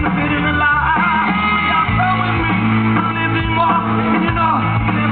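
Rock band playing live, a lead singer over guitars, keyboards and drums.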